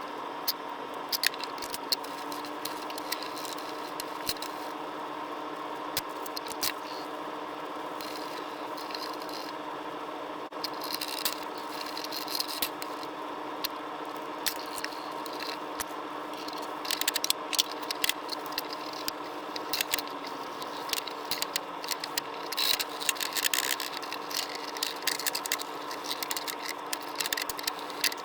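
Small scrapes, clicks and rattles of hand work, growing busier about halfway in, over a steady electrical hum.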